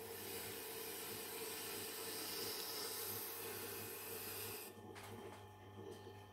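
Tormek sharpening machine running while an S35VN steel folding-knife blade is drawn slowly across its spinning hard felt wheel in a deburring pass. A steady motor hum sits under the hiss of steel rubbing on felt, and the hiss drops away about four and a half seconds in as the blade comes off the wheel.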